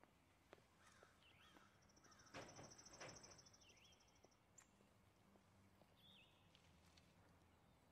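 Quiet outdoor ambience with birds chirping now and then, short chirps that bend in pitch. A high, rapid buzzing trill runs for about two seconds a couple of seconds in.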